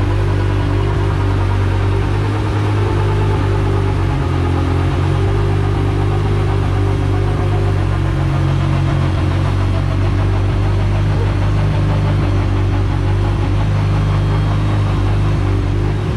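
Turbocharged Honda Prelude's H22 four-cylinder engine running at a steady speed on a hub dyno, a constant low drone with no revving.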